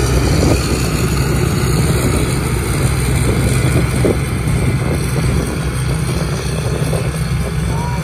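Tracked rice combine harvester running steadily under load while cutting and threshing rice, a continuous engine drone with a deep, even hum.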